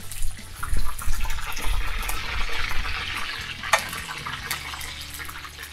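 Chunks of pork sizzling and crackling in hot oil in a kazan as they are seared over high heat. There are a few low bumps in the first two seconds, and one sharp click about three and a half seconds in.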